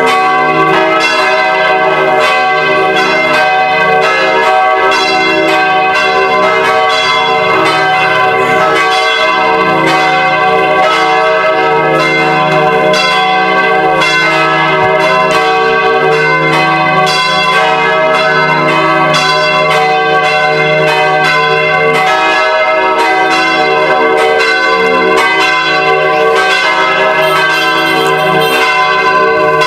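Church bells ringing in a continuous peal, strokes following one another rapidly so the ringing tones overlap.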